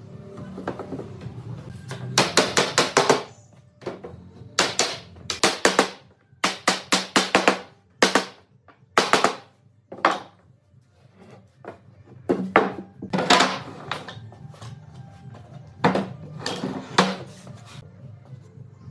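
Irregular bursts of rapid, sharp strikes in quick runs, each run about half a second to a second long, over a faint steady low hum.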